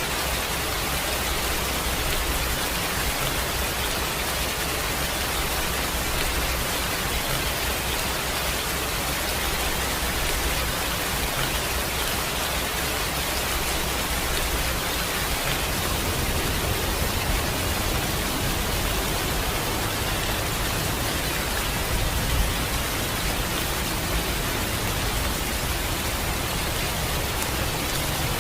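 Steady rain falling, an even hiss, with a low rumble underneath that grows stronger in the second half.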